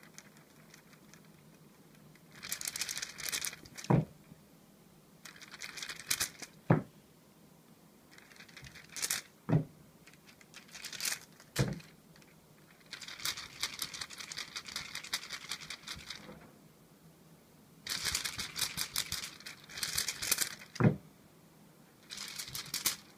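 Feather wand cat toy rustling and crinkling in repeated bursts as it is swished through the air. Several bursts end in a sharp thump as a cat lands on the wooden floor after a jump, about five thumps in all.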